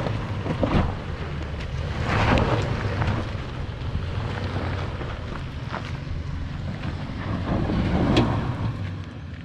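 Vehicle engine running low and steady as it is crawled slowly over a rough dirt trail, with scattered short crackles and knocks and wind on the microphone.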